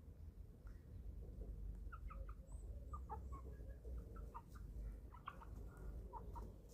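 Eleven-week-old chicks giving many short peeps and soft clucks while feeding, starting about two seconds in, over a low steady rumble.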